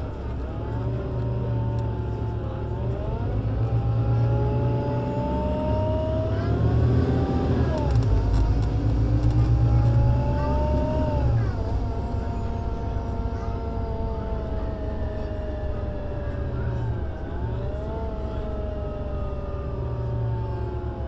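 Solaris Urbino 18 IV articulated bus, with a DAF diesel engine and Voith Diwa 6 automatic gearbox, accelerating. The engine and gearbox note rises with a gear change partway through, along with a thin high whine. The note then falls as the bus slows, and picks up briefly again near the end.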